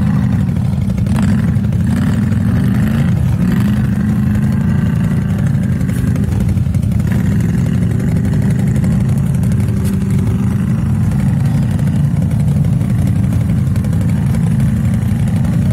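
ATV engine running at low revs, a steady deep drone with small changes in pitch in the first few seconds.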